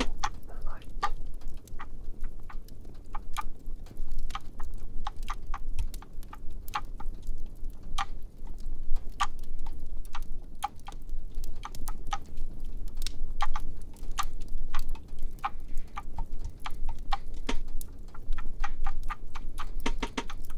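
Fireplace crackling: irregular sharp pops and snaps, several a second, over a low steady rumble.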